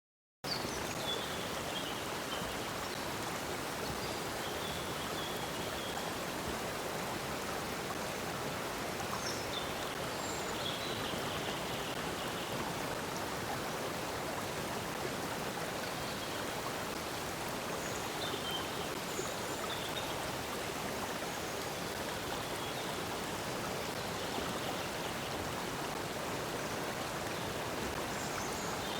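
Water flowing in a stream, a steady even rush that starts about half a second in, with short faint bird chirps now and then above it.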